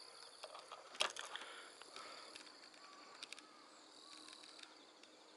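Faint outdoor ambience of insects calling in steady high-pitched tones. A sharp click comes about a second in, and a couple of softer clicks come about three seconds in.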